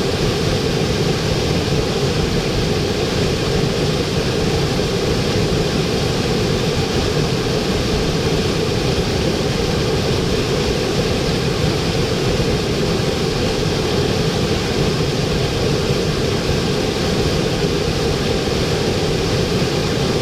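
Waterfall: water falling and splashing in a steady, unbroken rush, heavy in the low and middle range.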